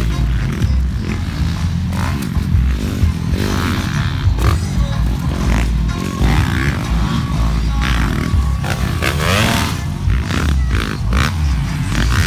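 Motocross dirt bike engines revving as riders pass on the dirt track, with a rising rev about nine seconds in.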